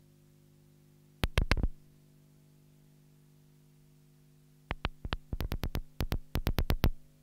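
Minimal electronic music: sharp clicks over a faint, steady synthesizer drone. A short cluster of clicks comes just over a second in, and a quick run of clicks fills the last two seconds or so.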